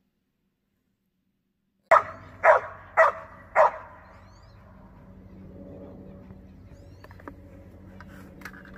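After about two seconds of silence, a dog barks four times, about half a second apart. A faint, steady low hum follows.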